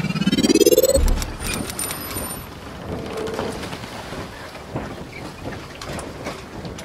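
Logo intro sound effect: a rising sweep that lands on a low boom about a second in, then high glittering sparkles and ringing tones, fading into a crackly noisy tail.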